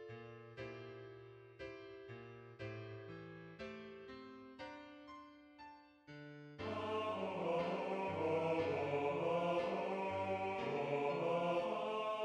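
Background music: slow piano chords struck about once a second, each dying away, then about six and a half seconds in a louder, sustained choir takes over.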